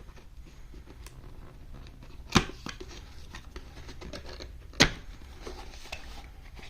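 Handling and opening of a product box, with small rustles and taps and two sharp snaps about two and a half seconds apart.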